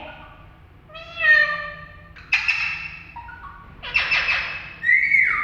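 Pet Indian ringneck parrot squawking: about four loud pitched calls in quick succession, the last a held note that drops in pitch.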